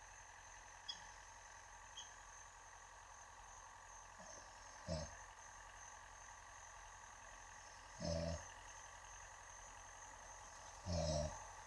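A man snoring: three short, low snores about three seconds apart, the second and third louder and longer, over a faint steady high-pitched tone.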